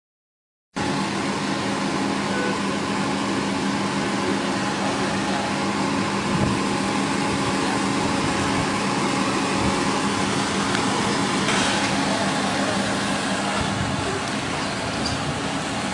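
Steady street traffic noise with a car engine running, cutting in abruptly about a second in.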